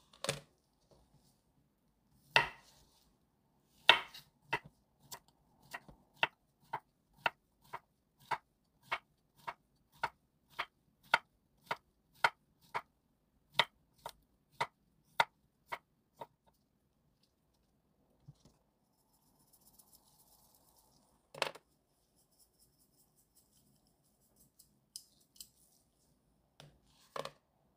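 Chef's knife slicing Korean zucchini into rounds on an end-grain wooden cutting board. Each cut ends in a sharp knock on the board, about two and a half a second for some twelve seconds. Later comes one louder knock, then a faint hiss of salt shaken from a shaker near the end.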